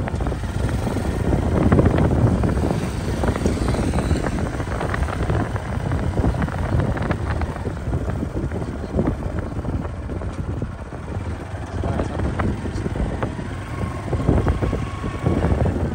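Wind buffeting the microphone, an uneven rumbling rush with irregular gusts.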